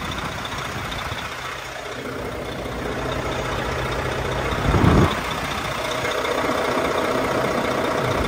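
A truck's diesel engine idling steadily, with one short louder burst of noise about five seconds in.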